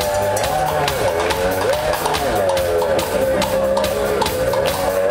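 Live rock band playing, heard from the audience: a drum-kit beat and bass under a wavering lead melody line.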